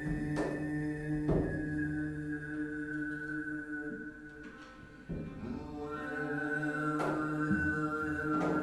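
Free-improvised music: a low, held, chant-like vocal drone with a few sharp percussive knocks. It grows quieter about halfway through, then swells again.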